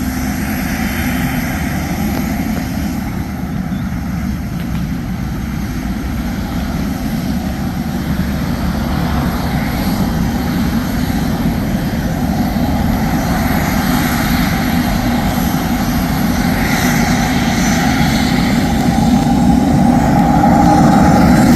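Cessna Citation Sovereign+ business jet's twin turbofan engines running at high power, a steady jet noise with a faint high whine that grows steadily louder, as on a takeoff.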